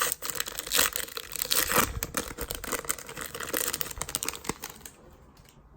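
Plastic card packaging crinkling and tearing as it is handled open, a dense run of small crackles that dies away about five seconds in.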